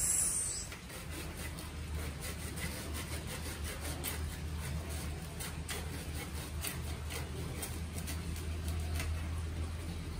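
Hand saw cutting through a thick, woody monstera stem in quick repeated strokes, with a low steady hum underneath.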